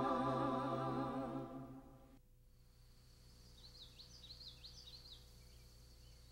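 A held sung note with strong vibrato fades out over the first two seconds and cuts off. Then, against a faint outdoor background with a thin steady high tone, a bird gives a quick run of chirps, with a few fainter chirps after.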